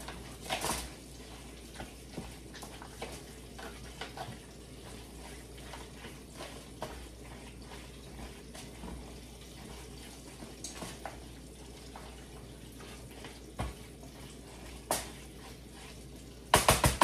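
A utensil clinking and scraping against a pan as macaroni and cheese is stirred, with scattered light knocks and a louder quick cluster of knocks near the end.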